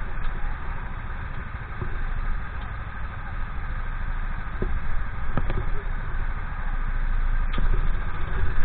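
Rental go-kart engines, Honda GX390 single-cylinder four-strokes, idling steadily, with a few faint clicks.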